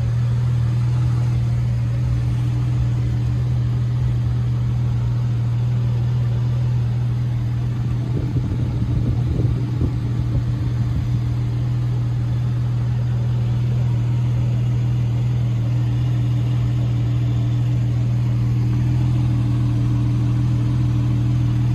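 Porsche 911 GTS flat-six engine idling steadily, heard from inside the cabin, with a brief rumble of handling noise near the middle.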